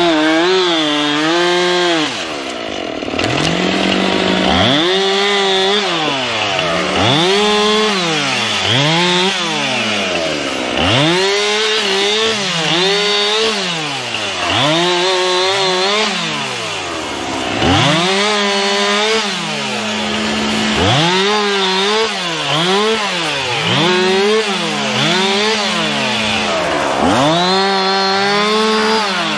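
Two-stroke chainsaw cutting wood, its engine revved up and dropping back over a dozen times, one rise and fall every second or two. A steady lower engine drone runs underneath from about four seconds in.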